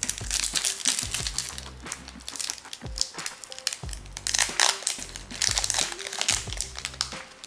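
Foil trading card pack wrapper crinkling as it is peeled open by hand and the cards are pulled out, in irregular crackles, over background music.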